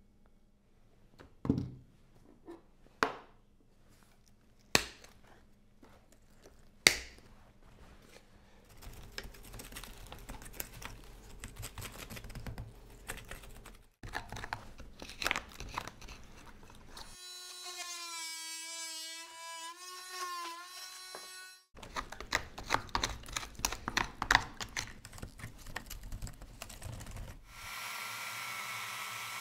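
Dirt, stones and bark being picked and scraped out of an almond tree root ball with a metal hand pick: a few sharp knocks, then gritty scraping and crackling with many small clicks. Partway through, a pitched whine rises and falls for a few seconds. Near the end a steady rushing hiss starts.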